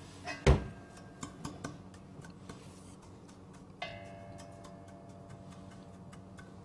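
A wooden spatula knocks once against a large stainless-steel pot about half a second in, then light clicks and ticks as it stirs dry sugar melting into caramel. A steady tone comes in about four seconds in.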